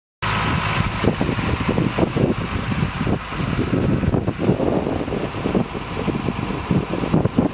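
Truck engine idling steadily, the HIAB crane lorry standing by to lift the pole.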